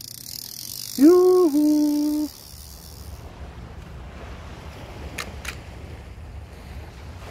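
Intro sting: a brief high hiss, and about a second in a short held tone that steps down in pitch once. Then the steady low rush of ocean surf, with two faint clicks near the end.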